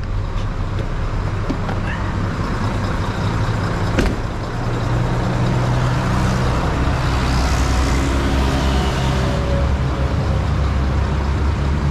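Mitsubishi Fuso Fighter's 6M60 turbocharged inline-six diesel idling steadily, with a single sharp knock about four seconds in.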